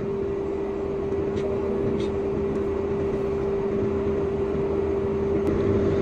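John Deere R4060 self-propelled sprayer running, heard from inside the cab with the air-conditioning fan on and the temperature set as low as it goes: a steady drone with one constant tone running through it.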